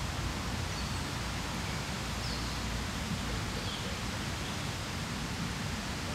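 Steady outdoor background noise, an even hiss with a rumbling low end, and a few faint, short high bird chirps.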